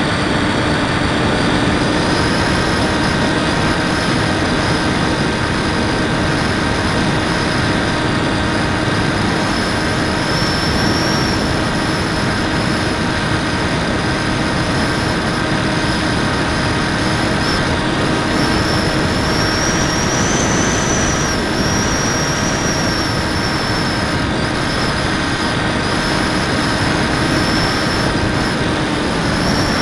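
Electric motor and propeller of a Raptor FPV model plane, heard through its onboard camera: a steady high whine over dense wind and vibration noise. The whine wavers slightly with throttle and rises briefly about two-thirds of the way through.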